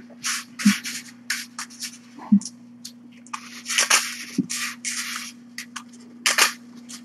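Kitten scratching and digging in a litter box: repeated short, scratchy scrapes with a few soft thumps, over a steady low hum.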